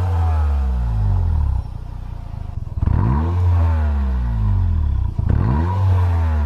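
Toyota Vitz RS Turbo's turbocharged four-cylinder exhaust, fitted with a makeshift straight-pipe adapter, idling and blipped twice, the revs rising and quickly falling back each time. The owner found it quieter with this adapter than he expected.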